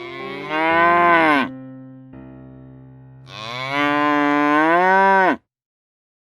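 A large animal calling twice, each a long drawn-out call that rises and then drops sharply at the end, the second longer, over soft piano background music.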